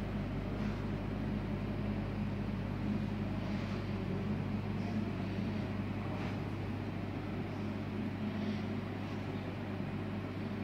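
A steady low hum over an even background of room noise, with a few faint brief rustles.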